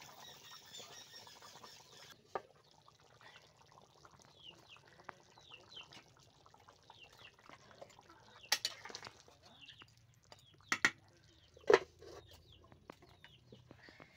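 Small birds chirping in short falling notes throughout. Several sharp metallic clanks in the second half, the loudest near the end, as an aluminium lid and bowl are set onto the cooking pot.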